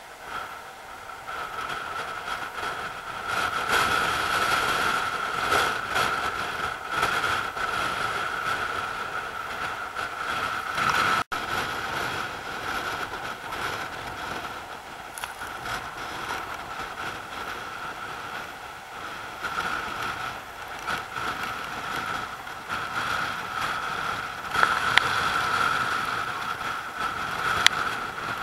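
Rough sea surf churning around rocks, heard as a steady rushing hiss, with wind buffeting the microphone. There is a brief dropout about 11 seconds in and two sharp clicks near the end.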